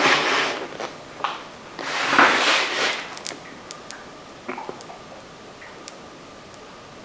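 A sticky string tyre plug being forced into a motorcycle tyre puncture with a T-handle insertion tool: two noisy pushes, one at the start and a louder one about two seconds in, then a few small clicks as the tool is worked in the rubber.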